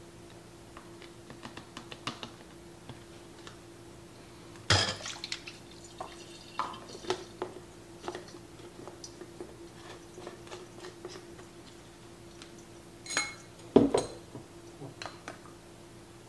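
Small plastic clicks and knocks as a personal-blender cup is handled and its lid fitted and twisted on, with two louder knocks, one about five seconds in and one near the end. A faint steady hum sits underneath.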